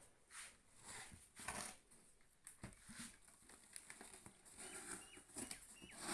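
Near silence with faint, scattered rustles and light taps, like a package being handled. A few short high chirps come in near the end.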